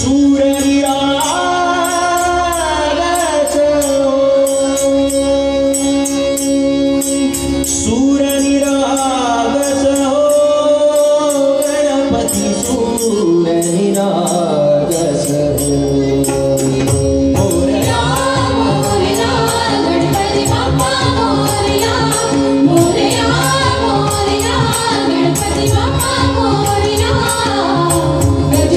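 Live Marathi devotional singing with tabla and small hand cymbals keeping time over a steady held drone. The drumming becomes fuller a little past the halfway point.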